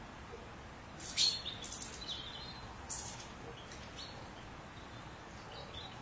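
European goldfinches calling: a cluster of short, high chirps and twitters about a second in, another near three seconds, then a few scattered single notes, over steady background noise.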